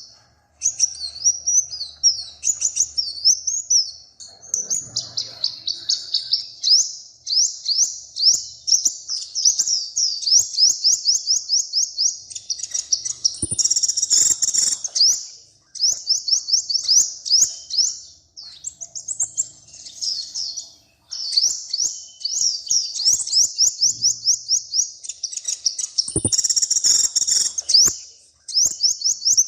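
A small songbird singing long, fast trills of high, repeated notes in phrases several seconds long, with short pauses between them. Twice, about halfway through and again near the end, the song swells louder and fuller.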